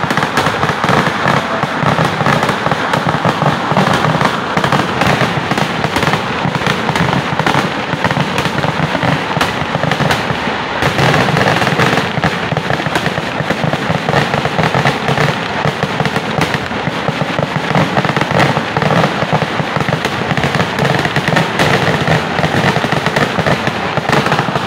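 Kerala temple-festival fireworks (vedikettu) going off in an unbroken barrage: aerial shells and firecrackers bursting many times a second, the reports running together into one continuous crackle.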